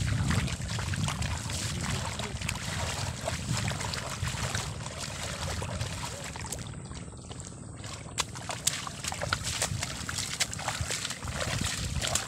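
Footsteps squelching and splashing through the mud and shallow water of a flooded rice paddy, with wind rumbling on the microphone in the first half.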